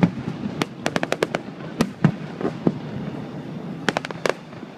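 Fireworks bursting in the air: irregular sharp bangs and cracks, with a quick run of them about a second in, scattered single bangs in the middle, and another cluster near the end.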